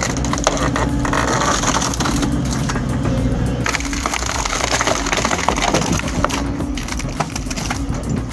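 Wood chipper running under load, its engine humming steadily while it chews up wood with dense, continuous cracking and splintering.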